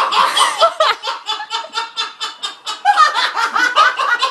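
Several people laughing loudly in quick, overlapping pulses, starting suddenly.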